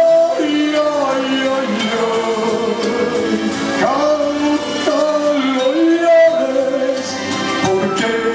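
A man singing a song live into a microphone, accompanied by acoustic guitars.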